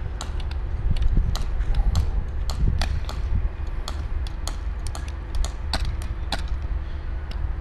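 Airsoft guns firing in scattered single shots across the field, giving irregular sharp clicks a few times a second, over a steady low rumble.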